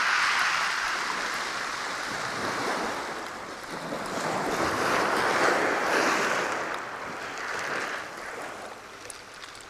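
Small waves washing in and drawing back on a shingle beach, the surf swelling and easing a few times.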